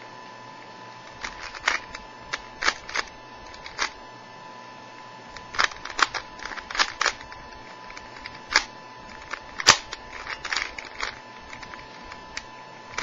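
Plastic 3x3 Rubik's Cube being turned by hand: irregular sharp clicks and clacks of the layers snapping round, in quick clusters with short pauses between. The cube is brand new and stiff, greased with petroleum jelly.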